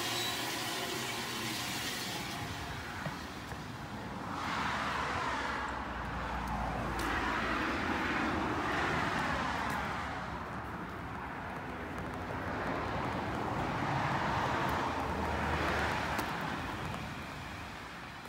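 Vehicles passing on a wet road, the tyre noise swelling and fading about three times.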